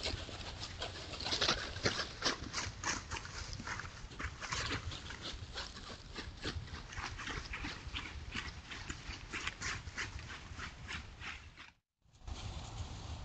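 Coyotes' footsteps crunching and rustling through dry fallen leaves in irregular steps, over a low steady hum. The sound drops out briefly near the end, then the leaf-rustling steps resume.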